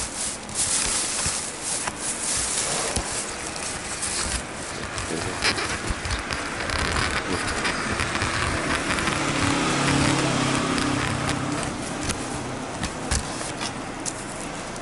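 A motor vehicle engine running steadily, strongest through the middle, over a rough rustling noise with scattered clicks.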